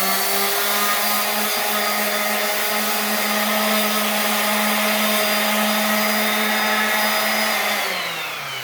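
Electric orbital sander running at full speed with a steady whine, then switched off near the end, its pitch falling as it spins down.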